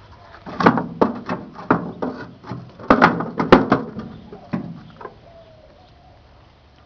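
Microwave oven arcing: a run of sharp electrical cracks and buzzing pops inside the running oven, coming thick for the first four seconds or so, then dying away.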